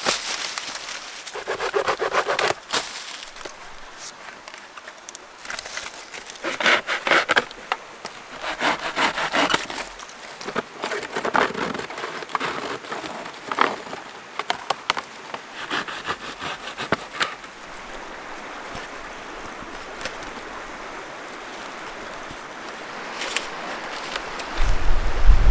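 A dead birch log cracking and splintering as it is broken apart, a run of sharp cracks and knocks, followed by a knife cutting and scraping birch bark. In the last seconds a river's steady rushing takes over, with a low rumble at the very end.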